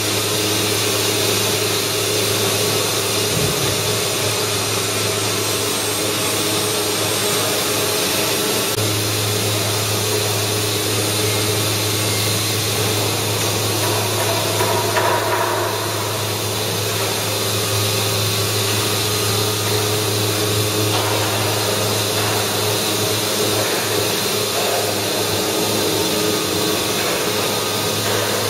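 Steady drone of a 5-axis CNC router's spindle milling wood, with a low hum that grows stronger about nine seconds in.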